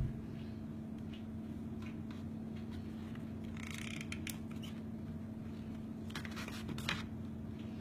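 Small clicks and taps of magnets being set into hot-glued metal beer caps, with a short scrape of handling near the middle, over a steady low hum.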